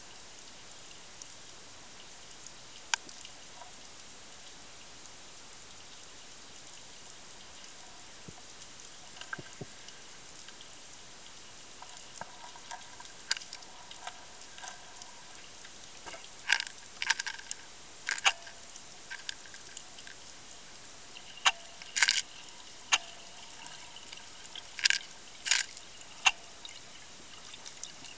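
Underwater ambience: a steady hiss with scattered sharp clicks and knocks, sparse at first, then more frequent and louder in the second half, a few of them ringing briefly.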